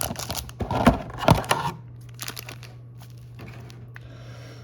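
Foil Pokémon booster pack wrappers crinkling as the packs are handled and sorted, with a couple of sharper knocks, for about the first second and a half; then it goes quiet apart from a faint low hum.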